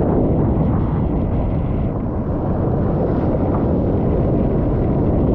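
Storm wind buffeting the microphone, a steady low rumble, mixed with the wash of heavy surf.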